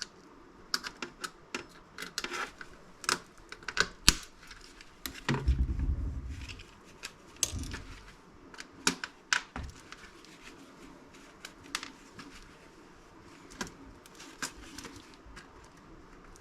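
Small screwdriver clicking, tapping and scraping against a laptop's case while prying out the little brass screw standoffs, in irregular sharp clicks. A duller low thump about five seconds in.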